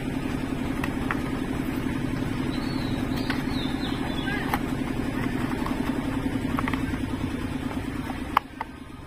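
A small engine idling steadily, cutting off abruptly about eight seconds in, with light clicks from a cardboard box being handled.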